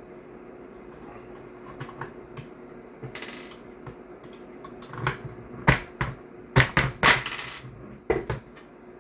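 Small metal tools and parts clinking and tapping on a hard work surface while an airsoft rifle is worked apart: scattered sharp clicks at first, then a cluster of louder clinks about five to seven and a half seconds in.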